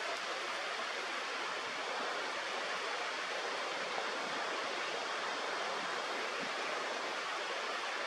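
Steady rushing of flowing water, an even hiss that neither rises nor falls, with no bird calls.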